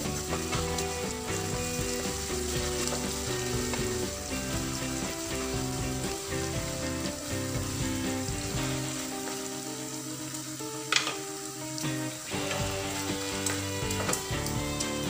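Chopped food sizzling in hot oil in a nonstick frying pan while it is stir-fried with a plastic slotted spatula, with one sharp knock about eleven seconds in.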